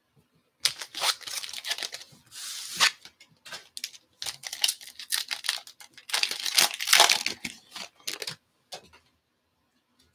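Foil wrapper of a 2020 Topps Tribute baseball card pack crinkling and tearing as it is handled and ripped open by hand, in an uneven run of bursts that starts about half a second in and is loudest about seven seconds in.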